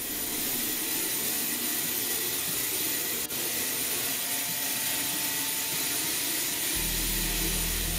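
Steady jet-engine noise, an even rushing hiss with a faint whine in it, heard inside the cargo cabin of a KC-135 Stratotanker. A low steady drone joins near the end.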